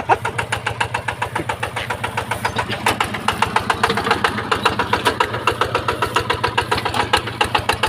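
An engine running steadily with a rapid, even chugging beat of about eight pulses a second.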